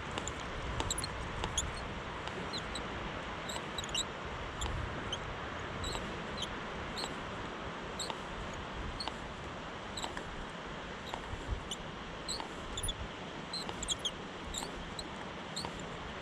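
Steady rush of a river flowing, with short, high chirps repeating irregularly throughout from small birds.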